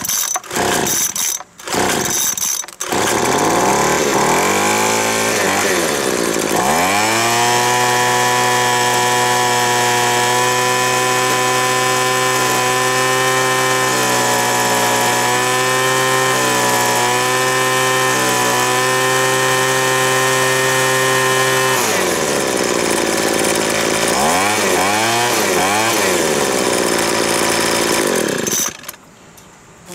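Craftsman B2200 leaf blower's two-stroke engine, freshly fitted with a new carburetor, starting after a few short bursts, revving up and running at a steady high speed while the carburetor is adjusted, its pitch wavering slightly as the screw is turned. Near the end it revs up and down several times, then cuts off suddenly.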